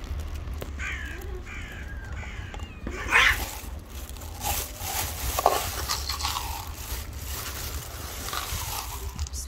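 Stray cats meowing: three short high meows, then a louder, harsher call about three seconds in, and a few more meows after it.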